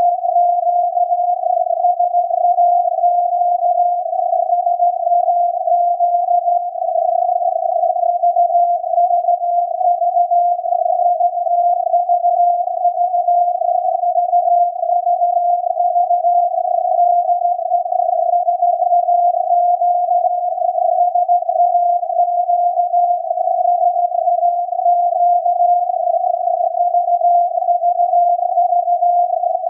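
Morse code signal from SAQ's Alexanderson alternator longwave transmitter on 17.2 kHz, received on a software-defined radio and heard as a tone near 700 Hz inside a narrow band of hissing static. It is the automated punched-tape "VVV de SAQ" test sending.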